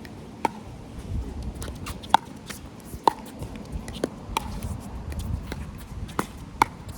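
Pickleball rally: paddles and court bounces strike the hollow plastic ball in a string of sharp pops, about one a second, with wind rumbling on the microphone.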